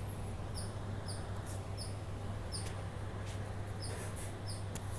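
Short, high chirps repeating irregularly, roughly once or twice a second, over a steady low hum, with a few soft bumps from the phone being handled.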